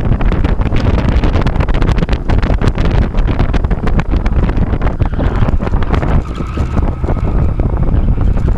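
Stock 2005 Honda S2000's 2.2-litre four-cylinder engine running hard during an autocross run, heard from the open-top cabin with heavy wind buffeting on the microphone. About six seconds in, the sound eases and a brief high squeal, typical of tyres in a turn, holds for about a second.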